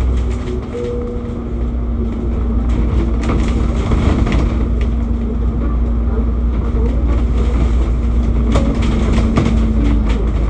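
A bus running along, heard from on board: a steady low engine and road rumble with a constant drone, and a few light clicks or rattles.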